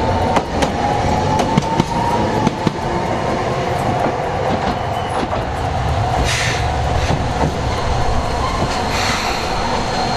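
Toei 8800-series streetcar on the Arakawa Line running on its rails, its motor whine slowly rising in pitch as it picks up speed, with scattered clicks from the wheels over the track. In the second half come short hisses of air as a tram pulls in and stops.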